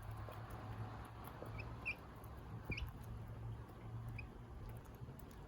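A young chick peeping: about five short, high, faint peeps a second or so apart, some sliding upward, over a low steady background rumble.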